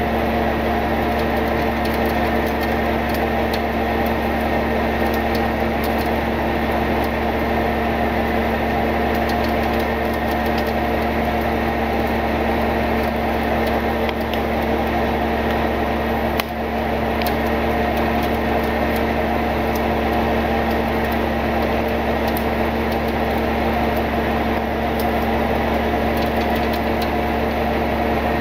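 Tow truck's engine and winch running steadily while winching a rolled pickup up an embankment: a continuous mechanical drone with several held tones, with a brief dip a little past halfway.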